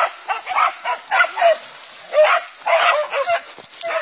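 Hunting dogs barking and yelping excitedly, in quick, repeated high barks with no pause.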